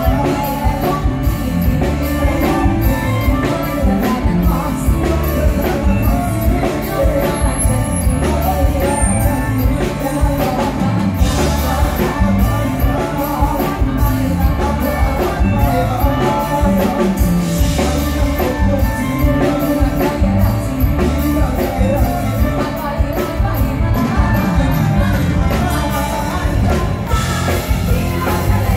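Live band music through a stage PA: a woman singing a Thai song into a microphone over drums and a steady beat.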